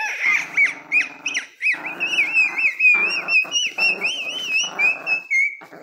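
Chihuahua growling while tugging a blanket in its teeth, with a high, wavering whine that runs on and stops near the end.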